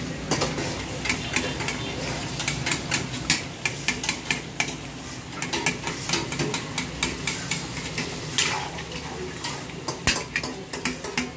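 Metal ladle stirring chicken karahi in a steel karahi wok: many sharp, irregular clinks and scrapes of metal on metal, several a second, over a steady low hum.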